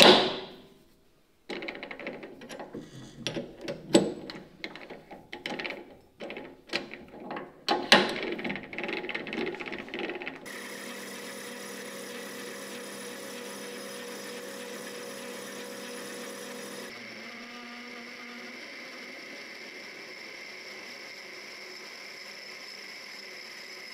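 Metal clicks, scrapes and knocks from handling a three-jaw lathe chuck, with a sharp clank at the start and another about eight seconds in. After about ten seconds a small metal lathe starts running steadily with a faint hum and steady tones, facing a disc; about seventeen seconds in the sound shifts to a steady run as a twist drill bores into the spinning part.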